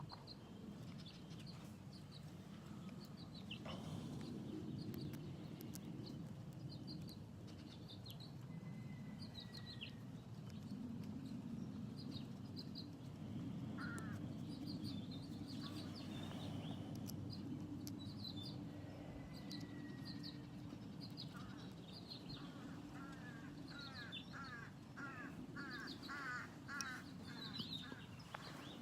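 Birds chirping and calling over a steady low hum, with a fast run of repeated calls in the last few seconds. A few faint clicks sit among the calls.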